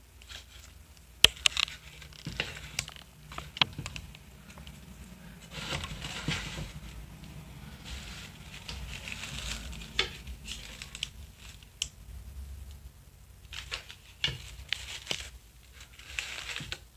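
Rustling and crinkling of artificial flowers and leaves being handled and pressed onto a cardboard box, with a few scattered sharp clicks and taps.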